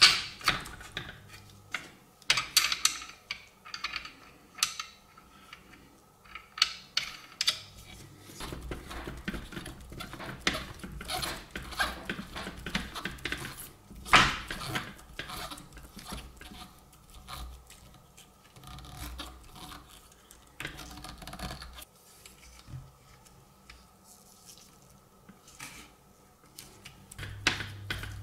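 Small metal clicks and clinks from a watchmaker's case press and its brass dies as a watch case is seated and pressed. One sharp click stands out about fourteen seconds in.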